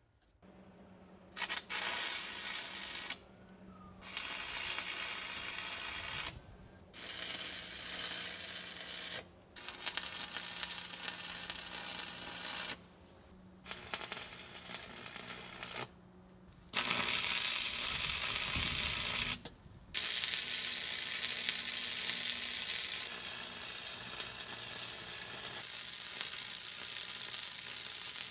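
Electric arc welding with a Lincoln 225 stick welder on steel tube: a crackling sizzle in several runs of a few seconds each, broken by short pauses, over a steady low hum.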